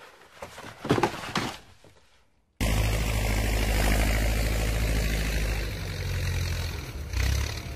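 Two-wheel walking tractor's engine running steadily, setting in abruptly about a third of the way in.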